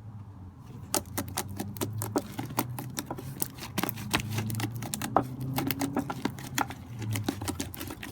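Slime being squished and worked quickly by hand, giving a fast, irregular run of sharp clicks and pops.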